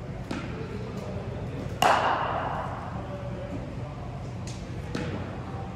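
A single sharp crack of a cricket bat striking the ball about two seconds in, ringing briefly in the hall, with a few lighter knocks around it.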